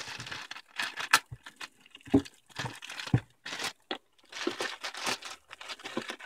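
Clear plastic bag wrapped around a small product box crinkling and tearing as it is cut and pulled open: irregular rustling with a few sharper snaps.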